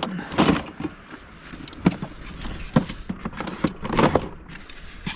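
Things being put back into a storage box by hand: a string of knocks and clatters, about half a dozen, with rustling between them.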